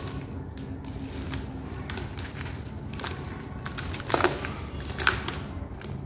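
Dry cast sand-cement cylinders crumbling as they are crushed in the hands: gritty crunching and crackling, with powder pouring. The loudest crunches come about four and five seconds in.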